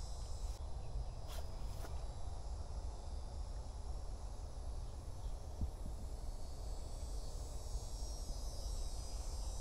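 Steady outdoor insect chorus, a high continuous trilling over a low rumble, with two faint ticks about a second and a half in.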